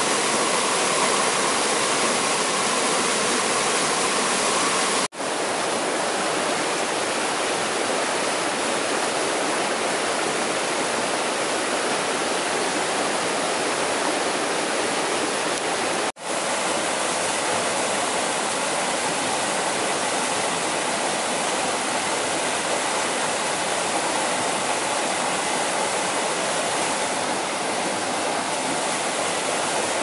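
Steady rushing of water, a dense even noise, cut off for an instant twice, about five and sixteen seconds in.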